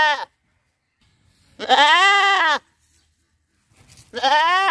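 Goat bleating: the end of one bleat at the start, a full bleat of about a second in the middle, and another beginning near the end. Each call rises and then falls in pitch.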